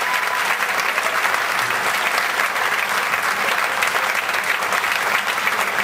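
Theatre audience applauding, a dense, steady clapping that holds at one level throughout.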